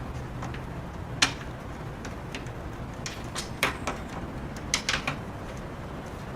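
A few sharp clicks and knocks from a garage door window frame and its screws being handled while the screws are threaded in by hand, over a steady low hum. There are single clicks about a second in and past the middle, then a quick cluster of them about five seconds in.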